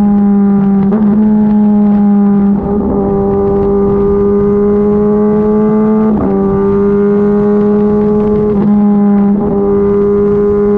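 Kawasaki ZX-10RR's inline-four engine running through an Arrow exhaust with the baffle (dB killer) removed, held at steady high revs while riding. It makes a loud, even drone, broken briefly about five times before settling back to the same pitch.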